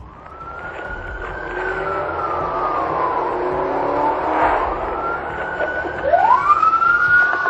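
Police car siren on a slow wail: its pitch climbs, falls away over a few seconds, then climbs steeply again about six seconds in. Car engine and road noise run underneath, and the sound grows louder over the first two seconds.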